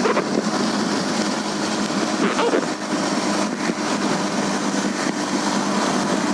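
Small motorcycle engine running steadily on the move, under a constant rush of wind and road noise.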